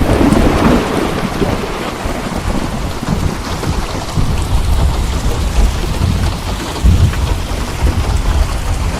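Steady rain with thunder: a clap breaks right at the start and rolls on into a low rumble that carries on under the rain.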